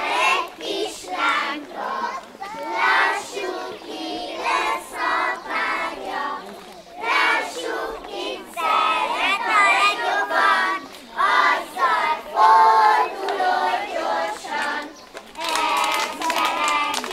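A group of young children singing a Hungarian folk song together in unison. Near the end, a run of quick hand claps joins the singing.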